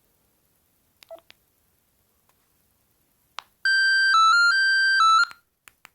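Bird S296 mobile phone's keys clicking, then a short ringtone preview: a loud electronic melody of a few beeping notes stepping between close pitches for about a second and a half before cutting off, followed by more key clicks.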